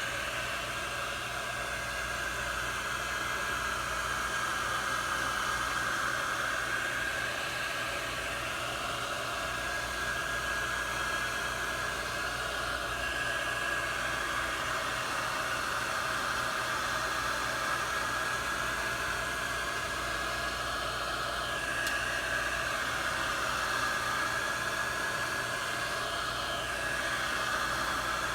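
Heat gun running steadily, a noisy blow with a high whine, heating a touchscreen digitizer to loosen it from the LCD before prying it off.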